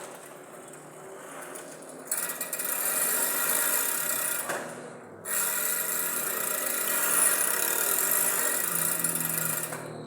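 Bicycle rear freewheel clicking as a loud, fast, rasping buzz, made louder by a small metal piece from a hair accessory rigged against the ratchet to imitate a cassette hub. It is quieter for the first two seconds, cuts out briefly about five seconds in, then comes back.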